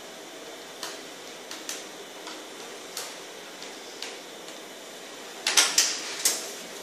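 Scattered light clicks and taps of hardware being handled, then a quick cluster of sharper, louder clacks near the end.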